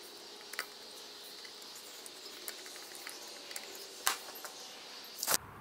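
Small clicks of insulated crimp terminals and screws being handled and fitted onto an air compressor's switch terminals, the sharpest just after four seconds in, over a faint steady high hiss.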